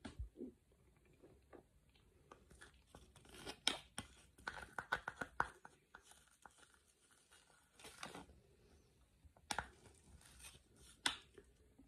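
Metal spoon scraping and clicking against a small plastic food cup, mixed with the crinkling of its foil lid being handled, in irregular bursts with quiet gaps between.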